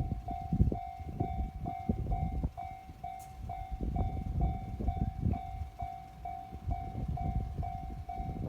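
Japanese railway level-crossing warning bell ringing steadily, one electronic clang about twice a second, for a crossing closed ahead of an approaching train. A gusty low rumble runs underneath.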